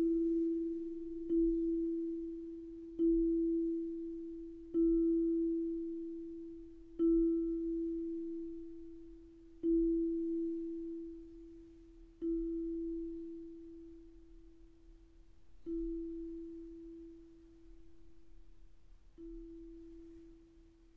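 Background music: a single bell-like note struck over and over, each strike ringing out and fading. The strikes slow from about one every second and a half to one every three or four seconds, and grow quieter.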